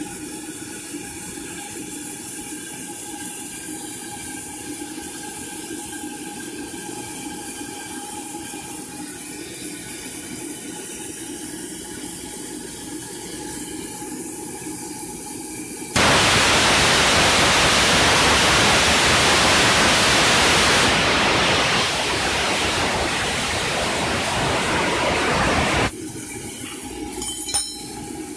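Coal-fired live-steam model locomotive in steam, hissing steadily with a few faint steady tones. About halfway through, a loud rush of escaping steam starts abruptly, eases a little partway and cuts off suddenly some ten seconds later. A small metallic click follows near the end.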